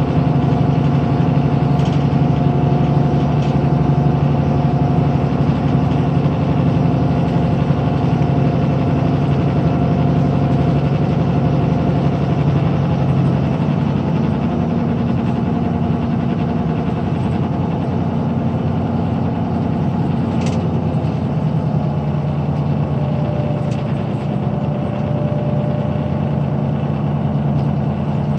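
Kia Granbird Sunshine coach's 425 PS Powertec straight-six VGT turbo diesel running steadily at cruise, heard from inside the passenger cabin along with road noise. The engine note shifts and the sound eases a little about halfway through.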